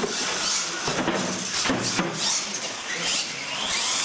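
Two radio-controlled monster trucks launching and racing on a concrete floor, their motors whining in rising and falling sweeps, with a few sharp knocks along the way.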